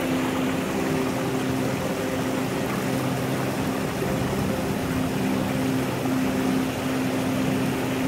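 Shallow mountain stream rushing and splashing over rocks in a steady hiss. Low steady tones come and go underneath.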